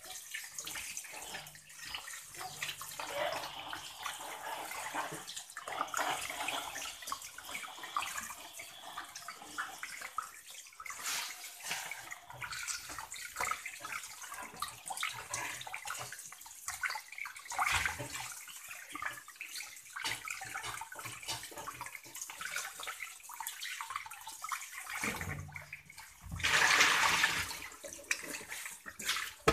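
Tap water running into a plastic basin in a stainless-steel sink while hands rub and rinse a whole tilapia, with irregular splashing. Near the end comes a louder rush of water as the basin is swished and emptied.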